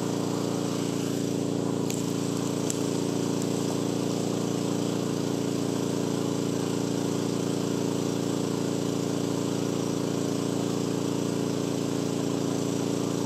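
Small engine running steadily at one even pitch, with no change in speed.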